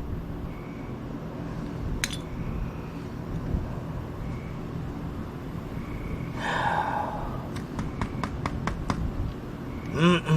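Electric fan running with a steady hum, broken by a single sharp click, a brief sigh, and then a quick run of about eight light metallic clicks from handling tools or parts.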